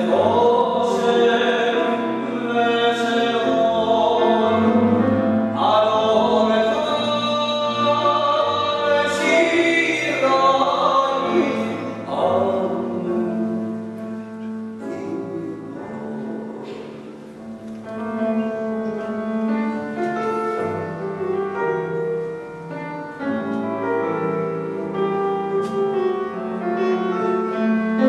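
A cantor singing in full voice with piano accompaniment; about halfway through the voice stops and the piano plays on alone, more softly.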